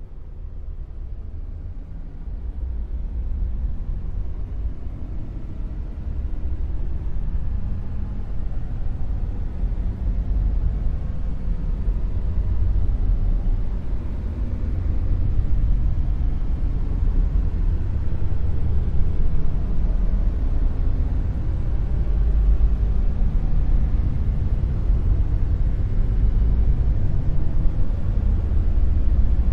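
Dark noise: a deep, low rumbling hiss with most of its weight in the bass and no pitch or rhythm, growing louder over the first ten seconds or so and then holding steady.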